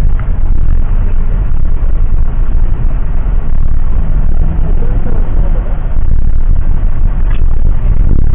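Steady, loud low rumble of a passenger jet's engines and airflow heard inside the cabin.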